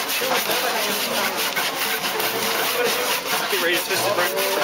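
Hand saw cutting across a log in fast, even back-and-forth strokes, a rapid rasping rhythm.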